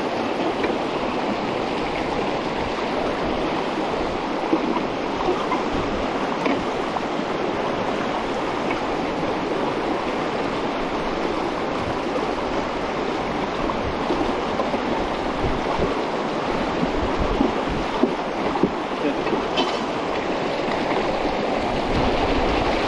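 Shallow mountain stream rushing fast over rocks: a steady, even rush of water close to the microphone.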